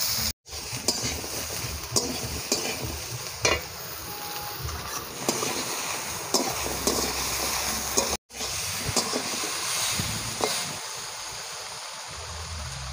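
Chopped vegetables sizzling in hot oil in a steel kadai while a metal spatula stirs them, scraping and knocking against the pan several times. The sound drops out briefly twice, at edit cuts.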